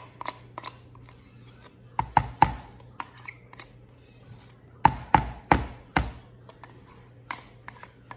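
Spoon scooping sour cream out of a plastic tub and knocking against the tub and the plastic mixing bowl. There are about three sharp taps two seconds in and a cluster of four or five around five to six seconds, with lighter clicks between.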